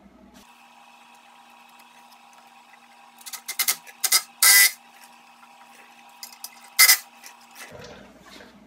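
Hose clamp being tightened on the intercooler pipe's silicone coupler: a run of sharp metallic clicks and scrapes about three seconds in, loudest near the middle, and one more short burst near the end, over a faint steady hum.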